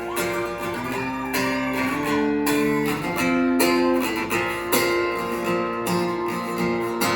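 Guitar strummed live, with steady repeated chords and no singing.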